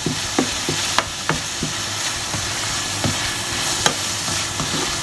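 Chopped chicken breast and onions sizzling in a frying pan as they are stir-fried, with the spatula scraping and knocking against the pan in several sharp taps.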